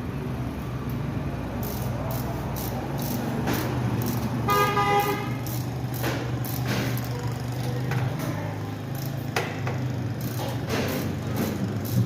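Motorcycle engine running steadily, with a horn sounding once, briefly, about four and a half seconds in. Scattered sharp clicks and knocks run over it.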